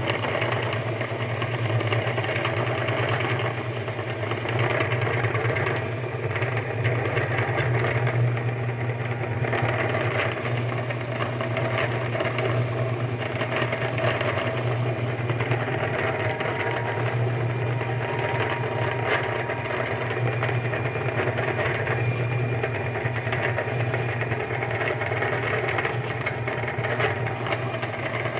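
Electric meat grinder motor running steadily with a constant hum, grinding Oreo Mini biscuits.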